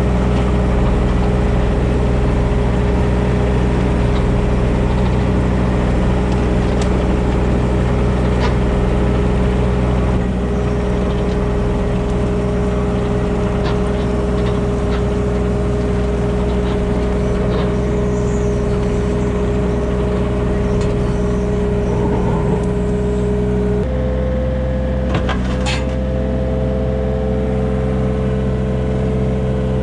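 Engine running at a steady speed, with a steady whine over a low hum. About 24 seconds in, the pitch steps up slightly and then holds.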